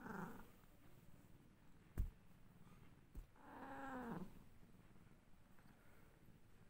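Tabby cat giving two soft meows: a short one at the start and a longer one about three seconds in that rises and then falls in pitch. A sharp click about two seconds in is the loudest sound, with a smaller click just before the second meow.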